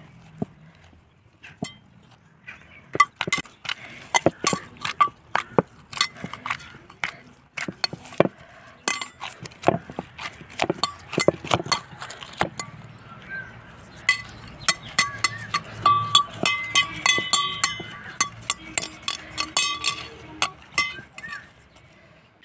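Stainless steel mixing bowl clinking and ringing again and again as dough is kneaded and pushed against its sides by hand. The knocks come quick and irregular, thicker from about three seconds in.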